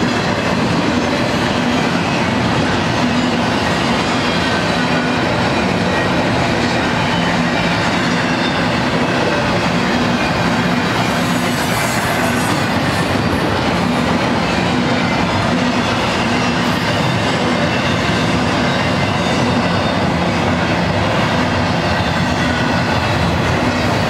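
BNSF double-stack container train's well cars rolling past, a loud, steady noise of steel wheels running on the rails.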